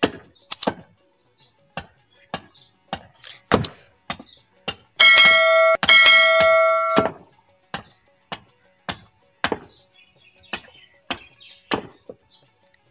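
A hatchet chopping into the end of an upright wooden stake, shaping a point on it, with sharp chopping strokes about twice a second. Midway a loud ringing chime sounds in two parts over about two seconds, over the chopping.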